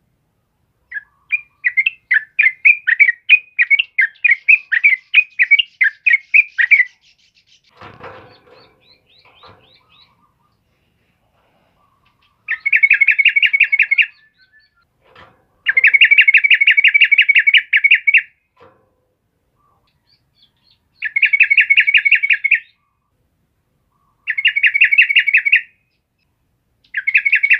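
Yellow-vented bulbul singing: a loud run of quick, bubbling notes for about six seconds. After a pause it gives a string of short, fast trilled bursts a few seconds apart. A faint scuffle is heard in the pause.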